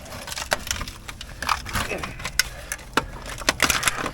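Irregular clicks and knocks of hand tools working on a seized, rust-crunchy bolt holding the rear hub and stub axle to the beam, as they try to snap it out.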